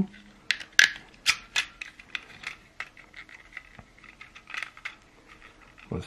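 Irregular clicks and taps of hard plastic as Pez body-part pieces are pushed and snapped onto a Pez dispenser. The clicks come thickest in the first second and a half, with a few more about four seconds in.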